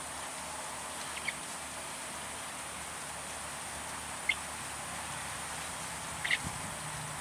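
Swamp ambience: a steady high hiss with a few short, high animal chirps, about one, four and six seconds in.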